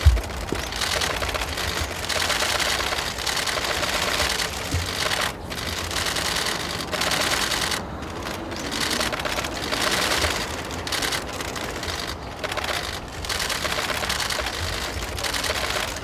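Several camera shutters firing in rapid continuous bursts, overlapping into a dense clatter with a few brief lulls.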